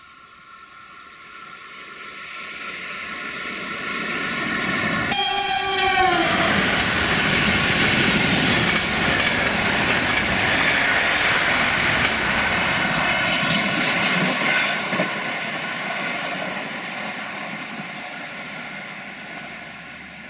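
Passenger train passing at speed. A horn sounds about five seconds in, its pitch dropping as the locomotive goes by, followed by the loud rush and rumble of the coaches passing close. The sound fades as the train recedes.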